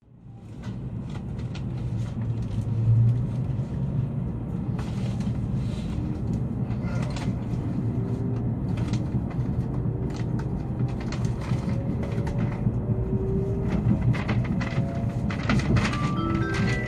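Steady low rumble of a Tokaido Shinkansen Kodama train running, heard from inside the passenger car, with small clicks and rattles and faint whining tones.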